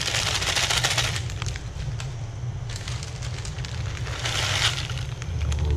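Plastic instant-noodle packet crinkling in three bursts as it is shaken out over the pot, over a steady low rumble.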